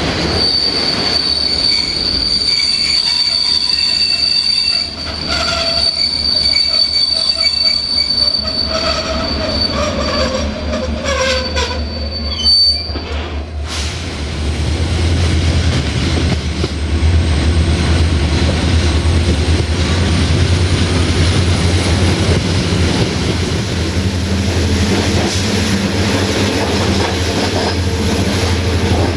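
Passenger-carriage bogie wheels of a moving train squealing on the rails in a steady high tone for about the first twelve seconds, with clattering wheels and a lower tone slowly falling beneath it. After that a steady deep drone of a diesel locomotive's engine and the rolling train takes over.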